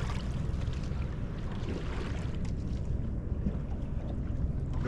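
Steady low rumble of wind on the microphone over a small boat on open sea, with a few faint ticks.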